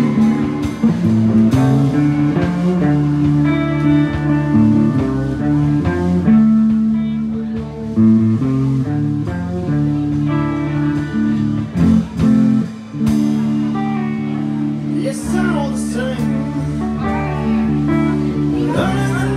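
Live blues-rock band playing: electric guitars picking out a ringing intro riff over bass guitar and drums, with a man's singing coming in near the end.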